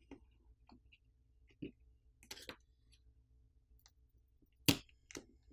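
A few faint, scattered clicks and light taps from a plastic pry pick and fingers working on a phone's internals as graphite film is peeled up. The sharpest click comes near the end.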